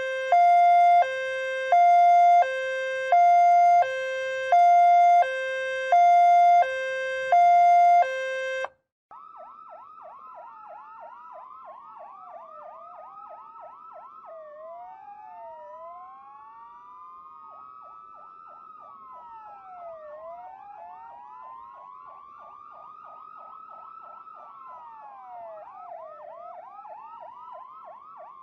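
Ambulance siren sound effect: a two-tone hi-lo siren alternating between a higher and a lower note about once every second and a half. About nine seconds in it cuts off, and quieter overlapping sirens follow, fast yelping sweeps layered with slower rising and falling wails.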